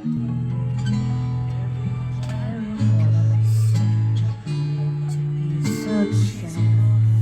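Music: strummed acoustic guitar over long held bass notes that change every second or two.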